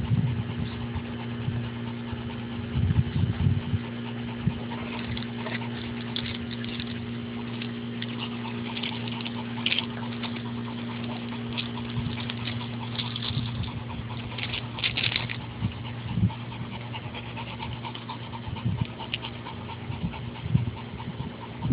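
Labrador puppies and an adult Labrador moving about on river-rock gravel: scattered scuffling and crunching of paws on stones. A steady low machine hum runs underneath, and there are a couple of short high squeaks, about ten and fifteen seconds in.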